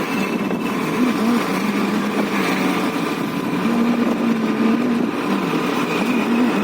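Hero Destini 125 scooter's engine running as it rides, its pitch shifting slightly up and down, over steady wind and road noise.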